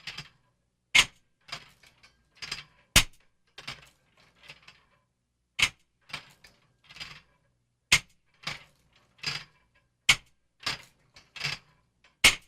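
A rapid, irregular series of sharp punch impacts, about two a second, some landing in quick pairs.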